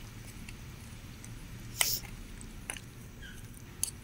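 Metal spoon stirring curry in a steel pot, with a few sharp clinks against the pot; the loudest comes about two seconds in.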